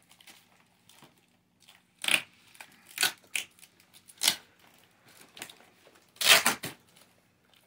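Cardboard box and plastic packaging being handled and pulled at while unpacking: a handful of short rustling, scraping bursts, the loudest a little past six seconds in.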